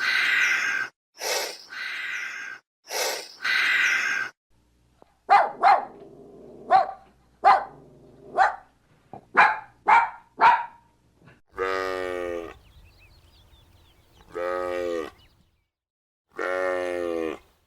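Animal calls: a run of breathy blasts, then a string of short sharp barking calls, then three long drawn-out calls about a second each.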